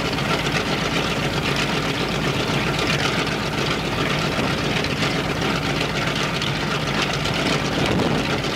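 Ilyushin Il-14T's left Shvetsov ASh-82T radial piston engine running steadily on a ground run, with a dense, rapid exhaust beat and no change in speed.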